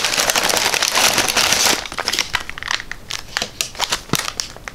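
Brown kraft packing paper crumpling and rustling as it is pulled out of a cardboard box: dense crinkling for the first couple of seconds, then scattered crackles that die down.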